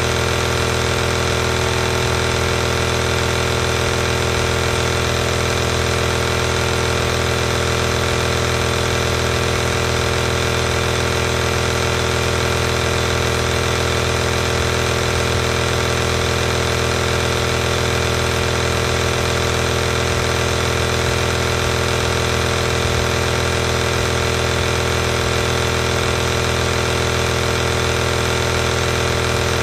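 Compressor nebulizer running close to the microphone. Its small air compressor gives a steady, even hum with an airy hiss, with no change in pitch or loudness.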